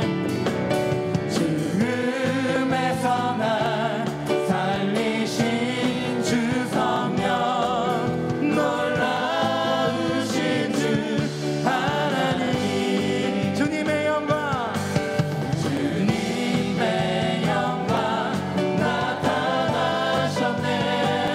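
Korean contemporary worship song sung by a mixed group of men and women, led by a male singer with acoustic guitar accompaniment.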